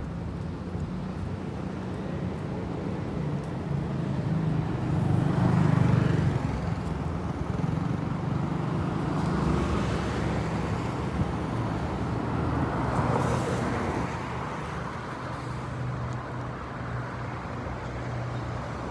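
Road traffic: a steady low engine hum, with vehicles passing by about five to six seconds in, again around ten seconds and around thirteen seconds.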